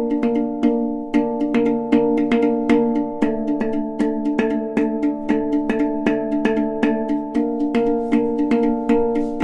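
Background music: held synthesizer-like chords that change every few seconds over a quick, steady light percussive beat.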